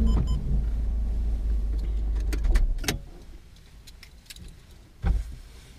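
Car engine idling with a low rumble, switched off about three seconds in. Then a few light clicks and keys jangling, and a knock near the end.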